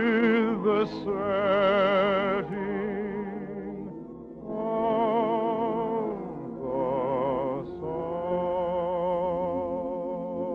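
A slow song sung in operatic style with orchestral accompaniment: a voice holds long notes with strong vibrato, in several sustained phrases with a softer stretch about three to four seconds in.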